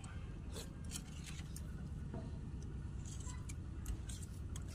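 Metal spoons clinking and scraping against a metal serving tray during a shared meal, in a scatter of short irregular clicks. A steady low rumble runs underneath.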